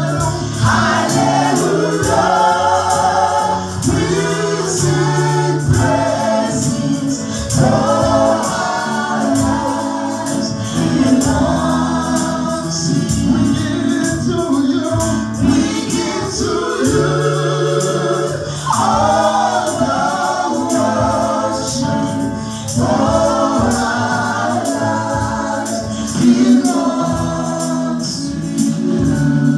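Gospel praise singing by a choir with a band: sung voices over a steady bass line and rapid percussion, with tambourine.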